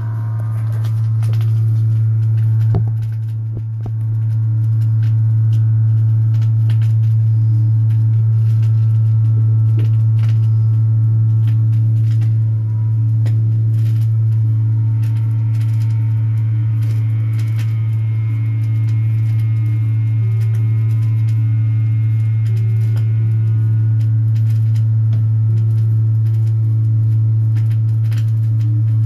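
Vinyl LP playing on a turntable: a loud, steady low hum dominates, with faint shifting notes above it and scattered clicks of surface noise.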